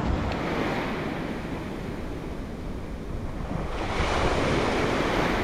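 Surf breaking and washing up the beach, with a louder wave surging in a little over halfway through, and wind rumbling on the microphone.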